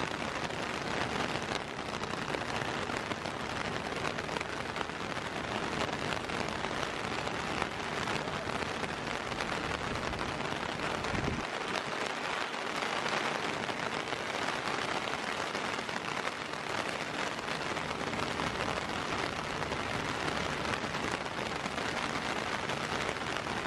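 Steady rain falling, heard from under a clear plastic umbrella that the drops are striking.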